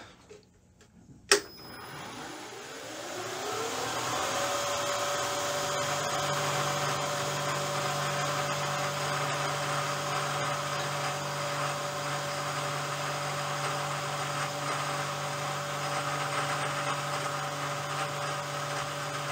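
Bridgeport milling machine switched on with a sharp click about a second in, its spindle motor spinning up over about three seconds with a rising whine. It then runs steadily at high speed while a carbide end mill takes a light pass across a clamped aluminum block.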